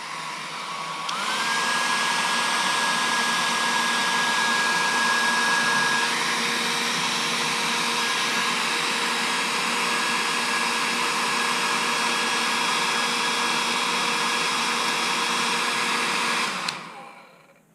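Handheld hair dryer running with a steady blowing rush and a motor whine. It comes up to speed over the first second, its whine rising to a steady pitch. It is switched off about a second before the end and winds down.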